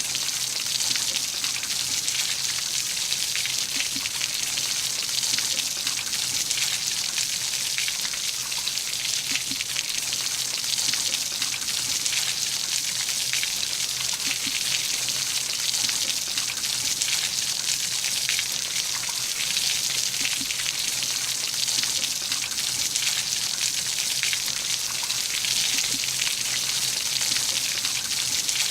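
Steady rain falling, a dense even hiss of many drops pattering close by.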